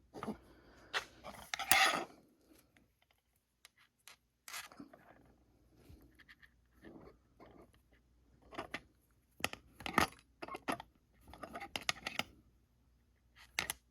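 Irregular small clicks, clinks and scrapes of metal soldering tools and wire being handled and positioned on a workbench.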